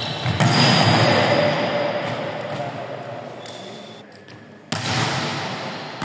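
A volleyball struck hard in a spike: a sudden loud smack about half a second in that echoes around the big indoor hall and dies away over a few seconds. A second sudden burst of ball and court noise comes shortly before the end.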